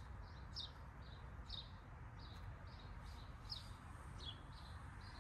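Faint, repeated short high chirps, about two a second, each dropping slightly in pitch, from a small animal calling.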